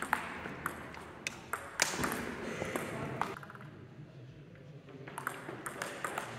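Table tennis rally: the celluloid ball clicking sharply off the table and the players' rubber-covered bats in quick, uneven succession. The clicks thin out for a second or two past the middle, then pick up again near the end.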